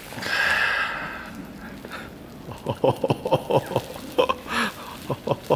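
A brief hiss at the start, then plastic bubble wrap around a boxed bike computer crinkling and crackling as it is handled, a quick run of sharp crackles from about two and a half seconds in.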